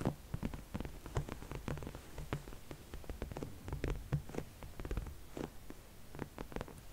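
Fingertips and long nails tapping and scratching on a smooth black padded surface, in quick irregular taps several a second, as ASMR triggers.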